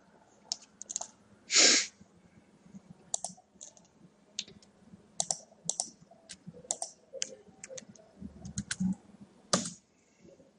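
Computer keyboard keys and mouse buttons clicking irregularly as a web link is copied and entered into a browser's address bar, with a louder burst about a second and a half in and another near the end.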